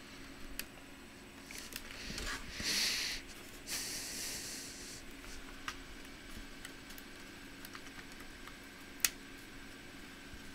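Small clicks and rustling from handling laptop parts, with a sharp click about nine seconds in and two short hissy scrapes in the first half, over a low steady hum.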